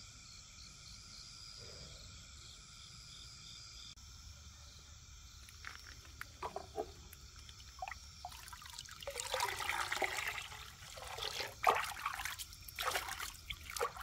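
Water splashing and trickling in uneven spurts, starting about five seconds in and getting louder and fuller a few seconds later. Crickets chirp steadily in the first few seconds.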